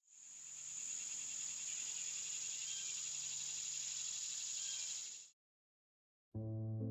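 Night-time insect chorus, a dense steady high trill like crickets or katydids, fading in and then cutting off abruptly about five seconds in. After a short silence, soft music begins just before the end.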